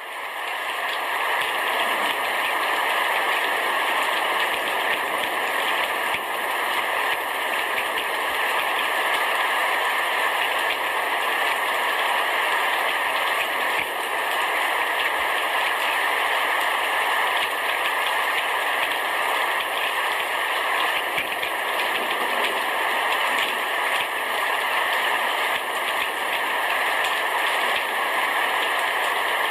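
Heavy rain shower falling on a roof: a dense, steady hiss of drops, fading in over the first second.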